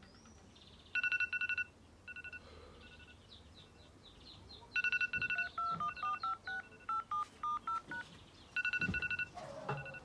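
Mobile phone ring or alarm tone: fast trills of beeps at one pitch, repeated several times, with a short run of chirps and a stepped melody of short beeps in between.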